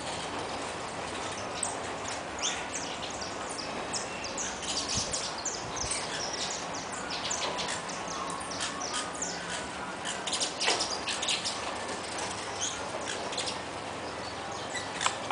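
A flock of saffron finches chirping, with many short, high calls overlapping. The chirping is thickest in the middle stretch.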